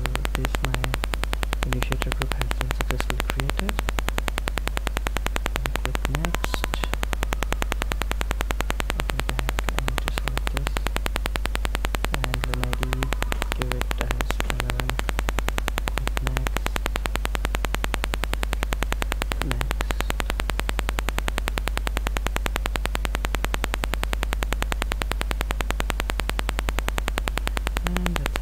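Steady electrical hum and buzz from a faulty microphone: a strong deep hum under a rapid, even buzz, with a few faint low sounds coming and going.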